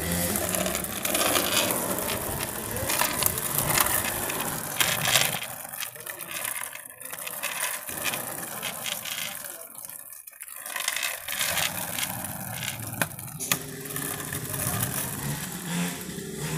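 Skateboard wheels rolling over rough concrete pavement: a steady rough noise with scattered clicks and knocks. It eases off for a few seconds in the middle.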